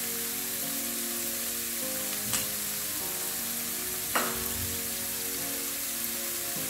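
Chopped onions sizzling in hot oil in a frying pan, a steady hiss, with two light knocks about two and four seconds in. Background music plays over it.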